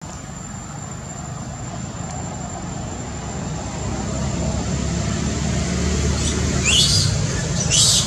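Two short high-pitched screams from a baby macaque near the end, the first falling in pitch, over a low steady rumble that grows louder.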